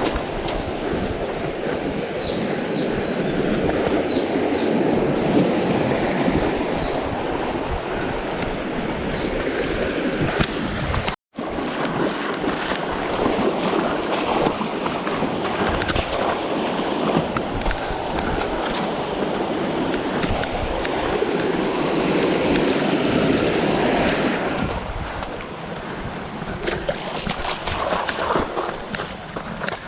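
Rushing stream water, a steady loud wash with some splashing, broken by a brief cut to silence about eleven seconds in.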